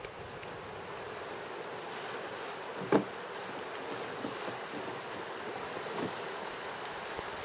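Steady rushing noise of the fast-flowing river and wind on the microphone. A single sharp knock about three seconds in, with a few fainter knocks later.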